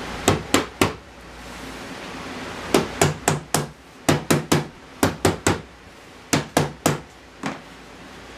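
Rubber mallet striking the wooden frame of a raised-panel cabinet door, about eighteen sharp blows in quick groups of three or four with short pauses between, driving the rails and stiles together to close the joints.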